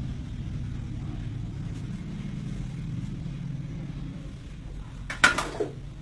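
A steady low rumbling hum, with a short, sudden, loud burst about five seconds in.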